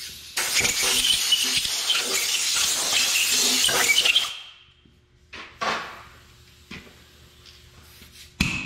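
Compressed-air blow gun hissing in one long blast of about four seconds as it blows off a bare engine block, followed by a few light knocks and clinks.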